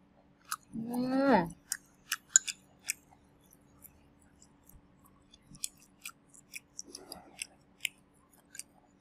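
A person chewing fried octopus, with sharp, irregular wet mouth clicks and smacks throughout. About a second in there is a short vocal sound that rises and then falls in pitch.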